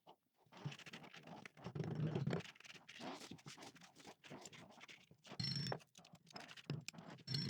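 Irregular scraping and rustling with small knocks and clicks, coming in uneven spurts.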